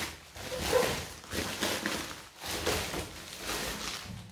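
Plastic courier mailer bag rustling and crinkling in irregular bursts as items are pulled out of it.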